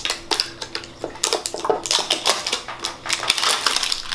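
Hands working the plastic wrapping off a small clear plastic tarantula enclosure: a dense run of small clicks and crackles, busier from about a second in.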